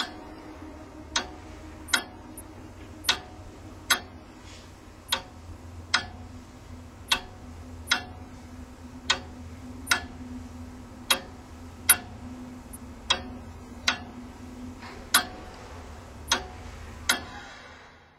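A clock ticking about once a second, over a steady low hum. The ticking stops near the end and the hum fades out.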